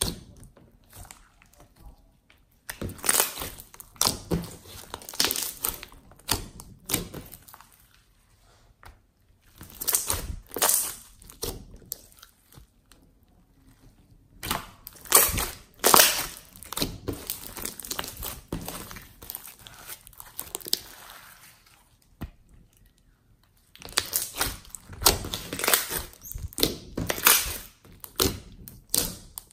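Hands squeezing and stretching a large lump of slime. Trapped air pops and crackles in quick runs of small clicks, coming in several bursts a few seconds long with short quiet pauses between them.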